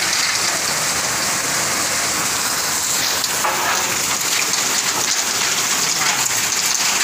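Heavy rain mixed with hail coming down hard: a dense, steady hiss speckled with many fine ticks of hailstones striking the ground.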